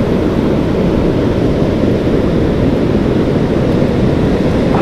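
Steady low rumble of wind on the microphone mixed with the rush of breaking surf.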